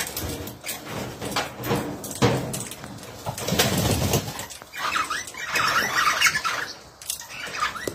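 Aviary birds calling and chattering, with a burst of calls about halfway through, over scattered sharp clicks and taps.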